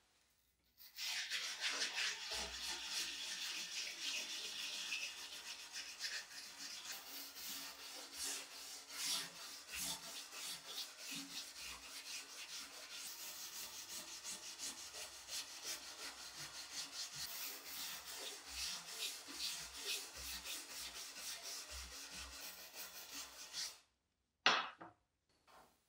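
A hand-held brush scrubbing back and forth along a steel hand saw blade in quick, scratchy strokes, working loosened rust and black residue off the metal after a rust-removal bath. The scrubbing stops about 24 seconds in, followed by two short scrapes.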